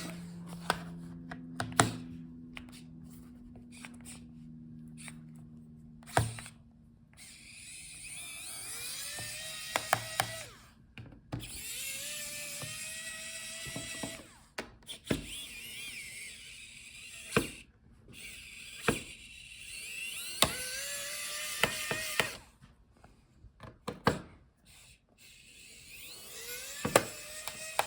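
Electric screwdriver backing out the laptop's bottom-case screws in several runs of a few seconds each, its motor whine rising as each run starts. Sharp clicks and taps come between the runs.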